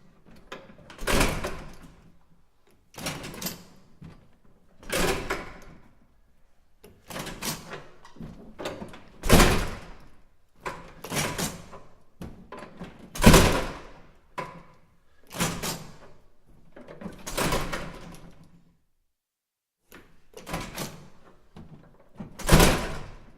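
Push bar door (panic bar door) being opened and let shut again and again: a run of about a dozen metallic clacks and thuds with short ringing tails, falling in rough pairs about two seconds apart, the second of each pair usually the louder.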